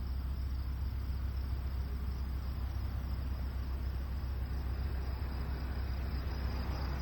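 Crickets chirring steadily, a constant high-pitched drone, over a steady low rumble.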